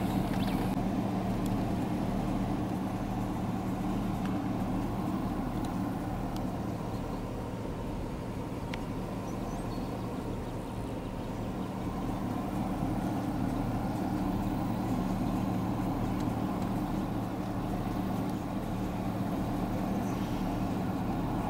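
Vehicle engine running steadily, a low even hum.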